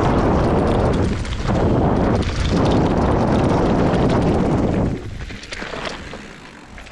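Wind buffeting the microphone together with mountain-bike tyres rumbling over a dirt and gravel trail at speed. About five seconds in the noise drops sharply as the bike rolls onto smooth asphalt, leaving a softer hiss and a couple of light knocks.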